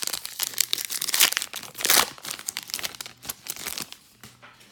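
A baseball card pack's wrapper being torn open and crinkled by hand: dense crackling that is heaviest for the first three seconds and thins out near the end.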